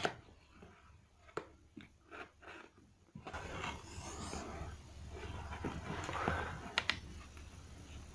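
Cardboard box flaps being opened with gloved hands: a few light taps and clicks, then scraping and rustling of cardboard from about three seconds in, with two sharp clicks near the end.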